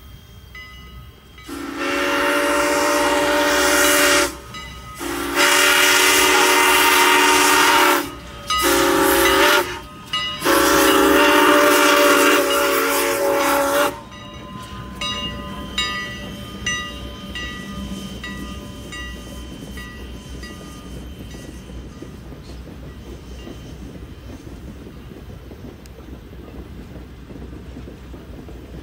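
Steam whistle of Canadian National 2-6-0 steam locomotive No. 89 blowing the grade-crossing signal, long, long, short, long, each blast a chord of several tones. Afterwards the locomotive's bell rings and the passenger coaches roll past, wheels clattering over rail joints and slowly getting quieter.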